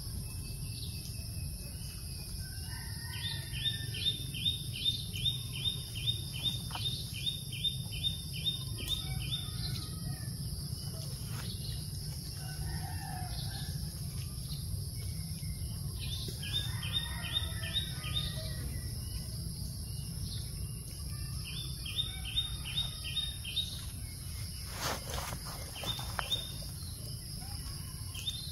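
Outdoor animal ambience: a steady high insect drone over a low rumble, with a bird repeating fast, even chirps in bouts of about two seconds, five times. Other bird calls come in between, and near the end there is a short crackle.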